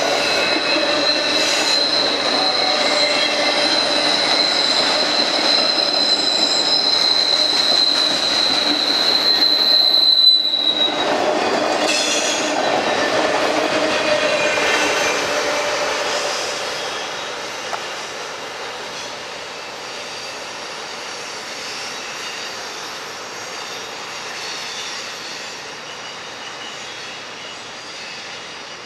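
Freight train of autorack cars rolling past with a steady, high-pitched wheel squeal. The squeal ends with a slight drop in pitch about ten seconds in. The rolling noise fades from about 16 seconds as the end of the train moves away around a curve.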